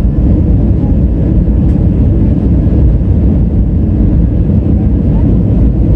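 Steady loud rumble of an Airbus A320's engines and airflow heard from inside the passenger cabin, even throughout with no distinct thumps or changes.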